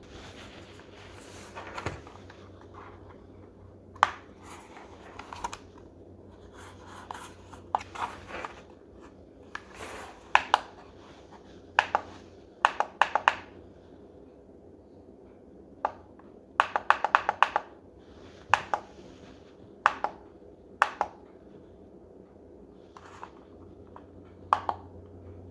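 Plastic push-buttons on an alarm clock being pressed to set the alarm: sharp single clicks, now and then a quick run of four to six presses, over a faint steady hum.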